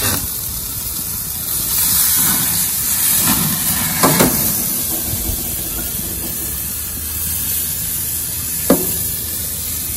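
Steady hiss and sizzle of a thick tomahawk steak searing over a propane grill's open flames, the fat dripping and flaring up. It swells as the steak is flipped with metal tongs about four seconds in, with a clack of the tongs, and a single sharp click comes near the end.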